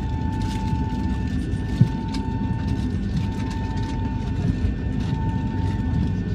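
Boeing 757 jet engine start heard from inside the cabin: a steady low rumble with a high tone that breaks off briefly about every second and a half, and a single sharp click about two seconds in.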